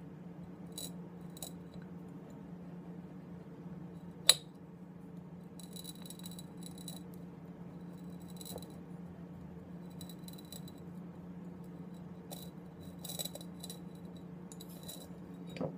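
Bottle cutter's cutting wheel scratching a score line into a glass beer bottle as the bottle is turned against it, heard in short gritty stretches, with one sharp click about four seconds in. A steady low hum runs underneath.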